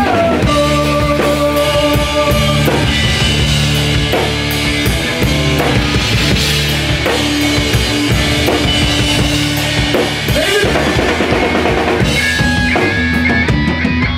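A rock band playing live at full volume: drum kit, electric bass and electric guitar, with held guitar notes over a steady drum beat.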